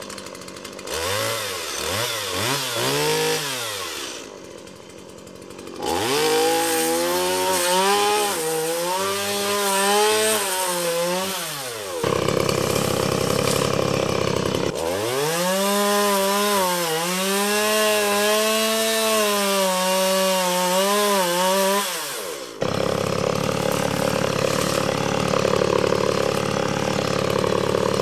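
Two-stroke gas chainsaw revving and cutting through the woody stems of a large shrub. The engine pitch rises and falls in repeated runs under the throttle, with several abrupt breaks between them.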